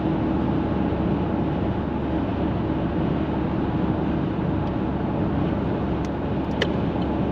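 Steady road and engine noise inside a car's cabin while driving at motorway speed, with a faint constant hum and a few light ticks about six seconds in.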